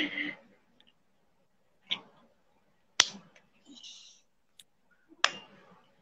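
A few separate sharp clicks, about a second apart, with a short hiss between them.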